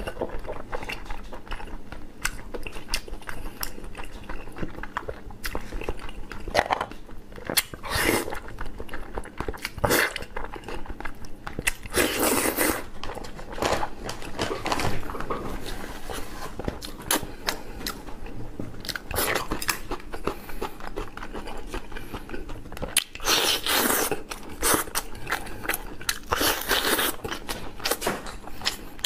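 A man chewing a mouthful of braised pork belly close to the microphone: a continuous run of wet mouth clicks and chewing sounds, with several louder bursts along the way.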